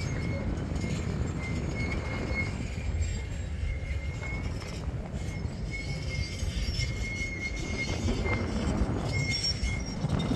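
Clustered honeybee swarm humming steadily, mixed with wind rumbling on the microphone.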